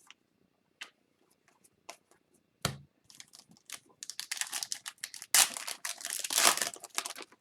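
Hockey card pack wrapper being torn open and crinkled for about three seconds, after scattered light clicks of cards being handled and a single thump about two and a half seconds in.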